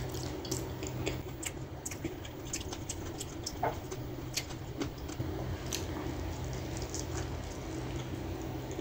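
Close-up wet mouth sounds of a person eating gravy-coated chicken by hand: scattered lip smacks, sucking and sticky clicks, over a steady low hum.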